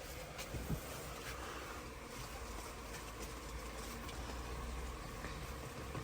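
Steady low background hum of a shop interior, with a few faint clicks and knocks.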